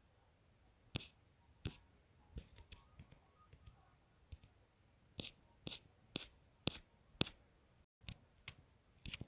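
Fingers tapping a smartphone's touchscreen: a string of faint, sharp clicks at uneven spacing, coming about two a second for a stretch about five seconds in.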